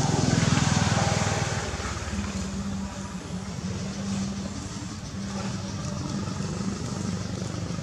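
A motor vehicle's noise swells and fades over the first second and a half, then gives way to a steady low engine hum.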